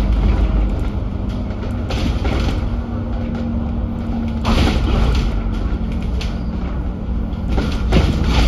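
Dennis Enviro500 MMC double-decker bus under way: steady engine and road rumble, with three sharp knocks or thumps, about two, four and a half and eight seconds in.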